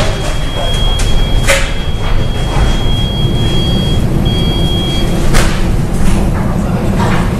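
Wind and sea noise on the open deck of a ship under way: a loud, steady low rumble, with a sweeping swish of water against the hull about a second and a half in and again a little past five seconds. A thin high whine runs through the first five seconds and stops.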